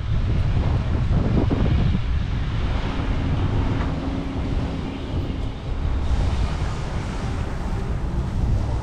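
Wind buffeting the microphone of a camera on a moving bicycle, a steady low rumble, with a faint steady hum for a few seconds in the middle.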